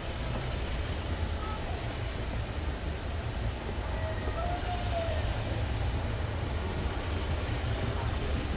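Steady low rumble of a vehicle on the move, with a faint short tone about halfway through.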